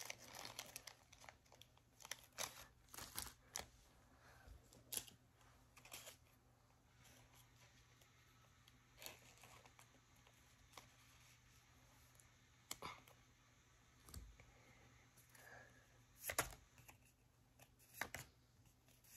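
Faint crinkling and crackling of a clear plastic card sleeve as a trading card is worked into it. The crackles come in scattered short patches, busiest in the first few seconds, with a quieter stretch in the middle and a few more near the end.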